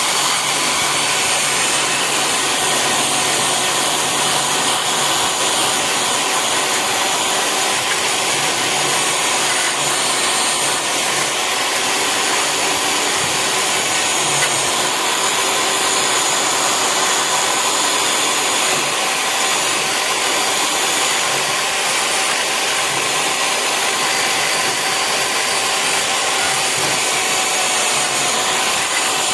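Electric power tool running steadily with a constant motor whine, working on metal.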